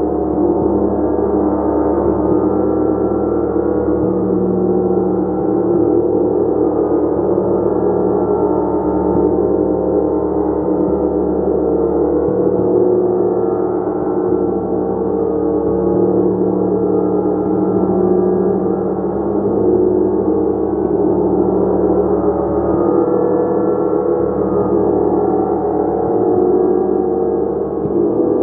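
Gong played continuously: a dense wash of many overlapping ringing tones held at an even, loud level, with no single strike standing out.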